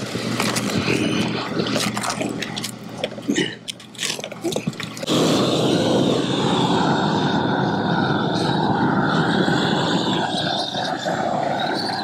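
A few scrapes and knocks of roofing material being handled, then about five seconds in a propane roofing torch comes on and runs with a loud, steady rushing flame as the patch is heated down.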